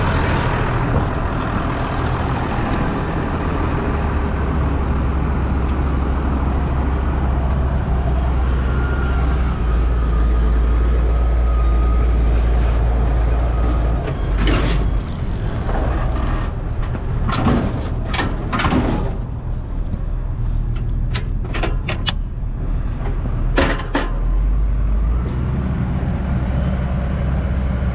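Farm tractor engine running steadily, with a series of short knocks and rattles in the middle stretch.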